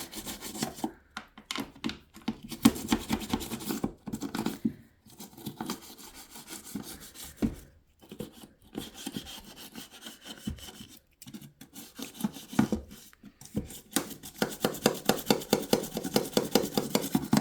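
Old toothbrush scrubbing grime off the inside of a washing machine's detergent drawer housing, in quick back-and-forth strokes broken by short pauses. The strokes run fastest and most evenly near the end.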